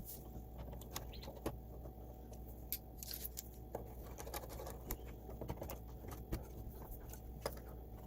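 Faint, scattered light clicks and scratches of a screwdriver working at screws in a Roomba i7's plastic housing.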